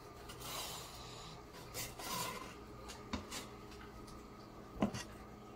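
Chef's knife sawing through a cooked steak on a bamboo cutting board: a few rasping strokes, then light clicks and one sharp knock on the board a little before five seconds in.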